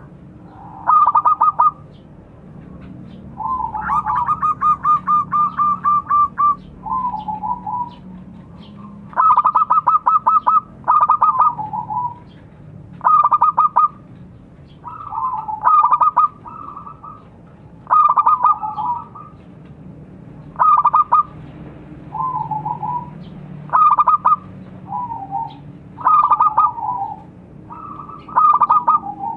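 Zebra doves (perkutut) cooing: short phrases of rapid staccato notes with a lower rolling coo, repeated every second or two. A longer fast run of notes comes about four seconds in.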